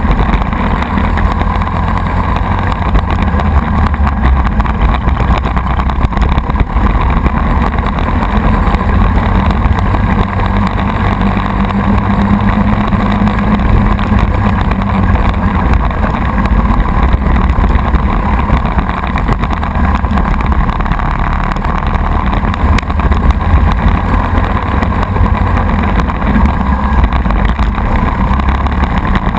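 Briggs & Stratton Animal single-cylinder four-stroke kart engine running hard at racing speed, heard from on board the kart.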